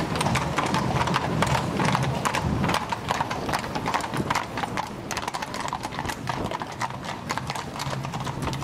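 Horses' hooves clip-clopping on cobblestones, several horses passing close at a walk with many overlapping strikes. A low rumble from the carriages' wooden-spoked wheels on the cobbles is strongest for the first three seconds and then eases.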